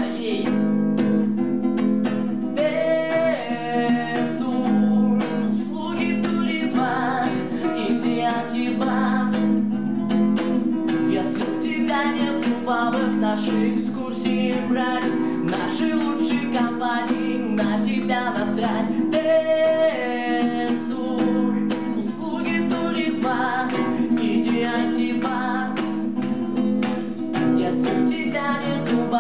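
A man singing while strumming a small nylon-string classical guitar.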